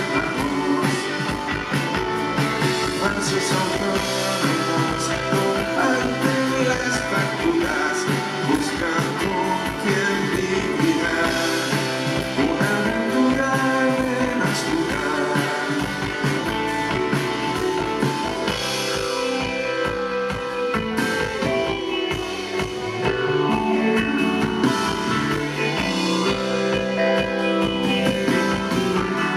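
Live rock band playing: electric and acoustic guitars over a drum kit, with a man singing lead vocals.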